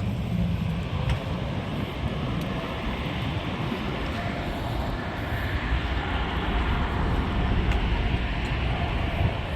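Jet aircraft engines running on the airfield: a steady rumble and hiss with a faint high whine.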